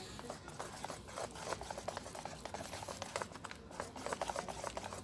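Wire balloon whisk beating pancake batter in a stainless steel bowl: a rapid run of light clicks as the wires strike the metal, mixed with wet stirring, busiest in the last couple of seconds.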